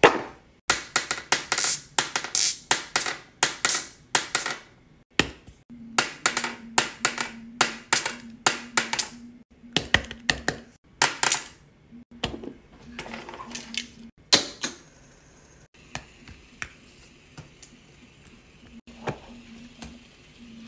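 Bubbles of a large silicone pop-it fidget toy being pressed and handled, a rapid run of sharp pops and clicks that thins out to a few scattered clicks after about twelve seconds.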